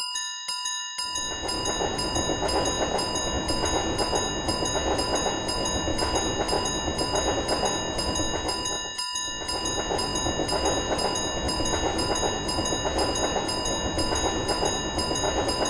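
Japanese railroad crossing warning bell dinging at about two strikes a second while a freight train rumbles past. The train noise comes in about a second in and briefly dips near the middle.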